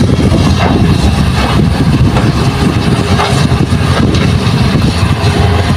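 Hitachi hydraulic excavator's diesel engine running steadily as the machine swings a loaded bucket of soil over to a dump truck, with a few short knocks in the first half.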